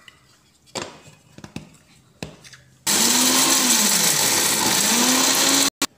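Electric mixer grinder (mixie) grinding cashew nuts into powder: a few light clicks as the steel jar is set on, then about three seconds in the motor starts and runs for nearly three seconds, its hum dipping and recovering under the load, before it cuts off suddenly.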